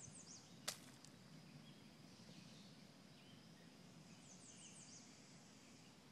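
Quiet outdoor background with a small bird calling: two short runs of quick, high, falling chirps, one at the start and another about four seconds in. A single sharp click, under a second in, is the loudest sound.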